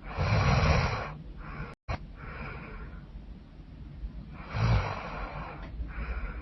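A woman snoring loudly in her sleep: two rough, rattling snores on the in-breath about four and a half seconds apart, each followed by a softer breathy exhale.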